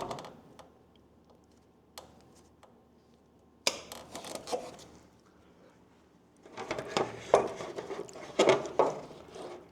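Clicks and metallic rattles of hand tools being handled: needle-nose locking pliers (vise grips) being worked to clamp shut a rubber fuel hose. A single sharp click comes about two seconds in, a short clatter around four seconds, and a longer, louder run of clicking and rattling in the last few seconds.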